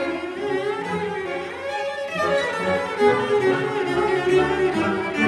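Symphony orchestra's bowed strings playing, violins and cellos together in a flowing passage.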